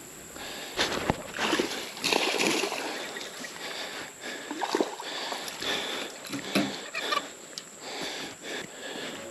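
Water splashing and sloshing around a kayak, with scattered short knocks.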